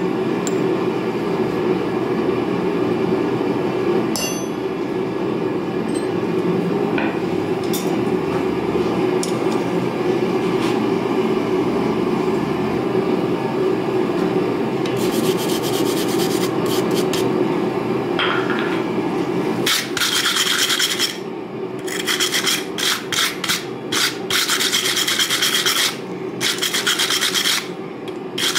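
A steady low roar runs throughout, as a forge heats the steel. In the second half a steel wire brush scrubs forge scale off the orange-hot railroad-spike steel on the anvil, in quick runs of scratchy strokes with short pauses.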